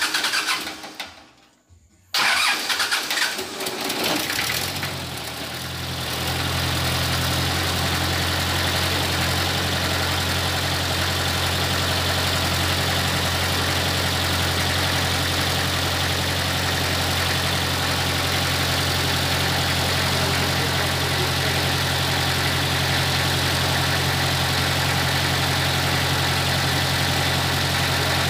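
Mitsubishi 4D30 four-cylinder diesel engine of an open-frame 30 kVA generator set starting: a first burst of noise dies away, then about two seconds in the engine fires, runs unevenly for a few seconds and settles into a steady idle.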